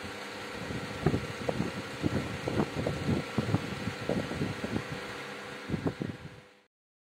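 A steady mechanical hum and hiss, with a string of irregular low thumps and bumps from about a second in. It cuts off suddenly near the end.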